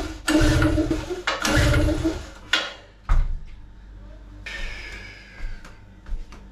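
Small portable petrol generator being pull-started: the recoil cord is yanked twice in quick succession, each pull about a second of cord whirring and engine cranking over. The engine does not catch. A single knock follows about three seconds in.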